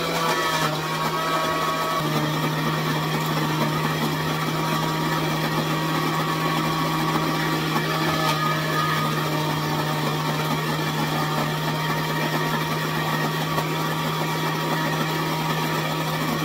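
Countertop blender motor running steadily, churning a thick vinegar-based green seasoning in its plastic jar.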